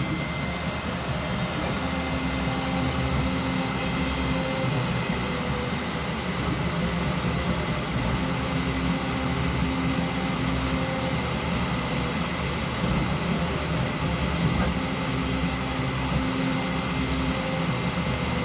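Enclosed FDM 3D printer mid-print on a PLA test cube: fans running with a steady hum and high tone, while stepper motors whine in a lower tone that comes and goes three times as the print head moves.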